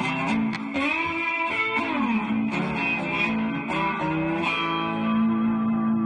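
Background music: a guitar playing a melody with bent notes, settling on a long held note about four and a half seconds in.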